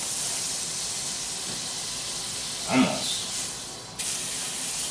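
Butter sizzling as it melts in a hot cast-iron skillet on medium heat, a steady high hiss. It fades briefly and comes back abruptly about four seconds in.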